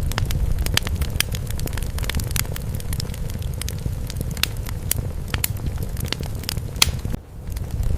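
Fire crackling in a fireplace: irregular sharp pops and snaps over a steady low rumble, with a brief dip in level about seven seconds in.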